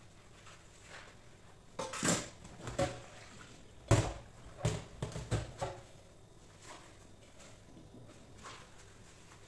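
Dishes being washed by hand in a stainless steel sink: clinks and knocks of metal utensils and a pot against the sink, in two bursts of clatter about two seconds in and again from about four seconds in, with quiet sponge scrubbing between.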